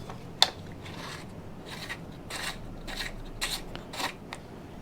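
Chainsaw parts being handled and fitted by hand: one sharp click about half a second in, then a run of short, soft rubbing scrapes.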